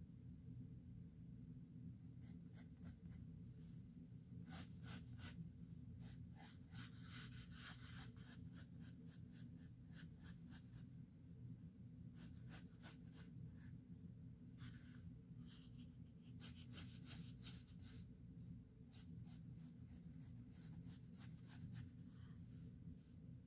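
Pencil scratching on sketchbook paper in faint, quick repeated strokes that come in runs with short pauses.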